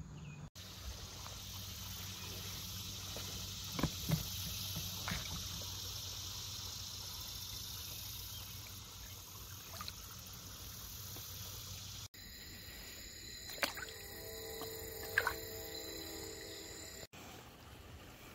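Quiet water sounds as a released carp swims out of a landing net, with a few brief sharp knocks. The background changes abruptly twice, and for a few seconds in the later part a steady hum of several tones is heard.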